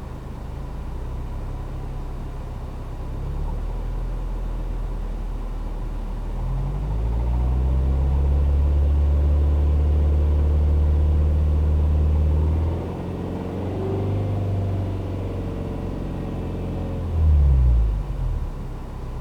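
Turbocharged flat-four engine of a 2008 Subaru Legacy (BP5), revved while the car stands still. It rises in two steps, holds raised for about six seconds, drops back, then gives one short blip near the end. A light rattling knock comes with the raised revs, caused by a spark plug left under-tightened that has loosened and leaks compression.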